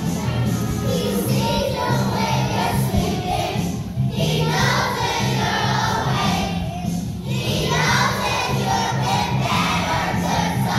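Children's choir singing together over instrumental backing music with a steady low beat, the voices pausing briefly between phrases.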